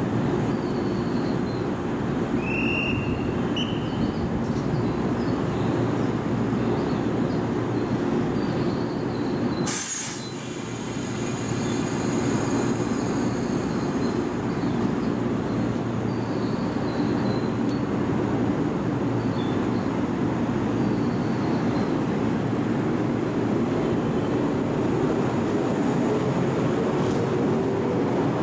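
Train running at a station platform, a steady rumbling hum with a few brief high wheel squeals early on. The sound breaks off sharply about ten seconds in, then the train's steady running resumes.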